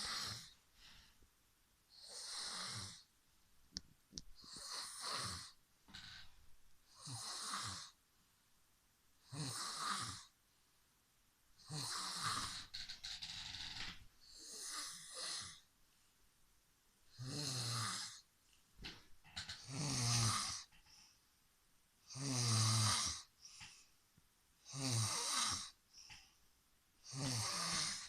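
A man snoring in his sleep, with one snore about every two and a half seconds. Each snore lasts about a second and has a low buzz under a breathy hiss.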